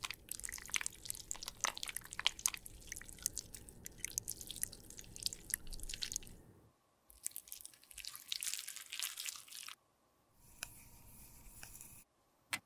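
Crushed makeup pieces being stirred and mashed with a small spatula in a small jar as they soften into a paste: dense, crisp, squishy crackling and clicking. It stops twice for a moment and comes back in two shorter stretches, the last one fainter, and one sharp click sounds near the end.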